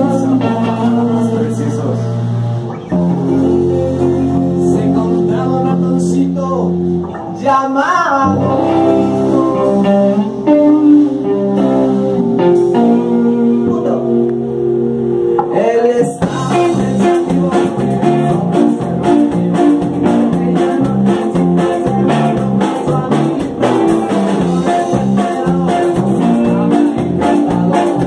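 Live rock band playing: electric guitars and bass hold long chords for the first half, then a steady driving beat on drums comes in about halfway through.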